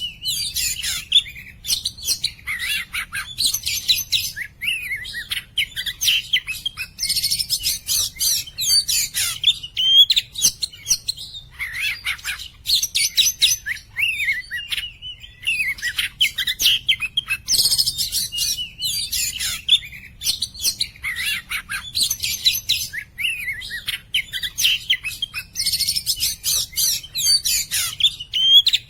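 Oriental magpie-robin singing continuously: fast, varied phrases of clear whistles, slurred notes and trills, with a dense burst of rapid high notes about every nine seconds.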